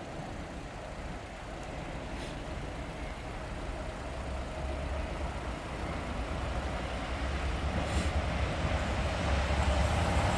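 Class 66 diesel freight locomotive approaching, its two-stroke V12 engine and wheels on the rails growing steadily louder.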